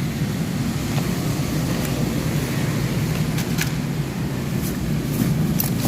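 A steady low hum runs throughout, with a few faint light clicks of small items being handled.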